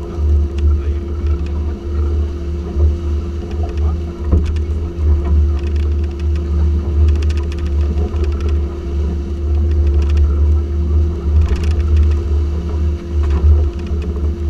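Twin Yamaha F350 V8 four-stroke outboards running steadily with the boat under way: a dense low rumble with a steady hum over it, broken by scattered clicks and slaps.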